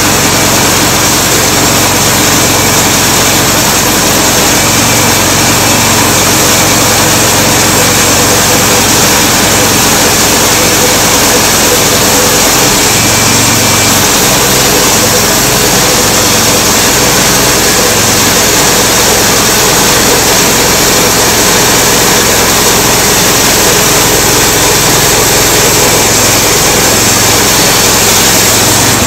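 Homemade bandsaw mill's small gasoline engine running steadily under load, with the band blade sawing a slab off a black walnut log.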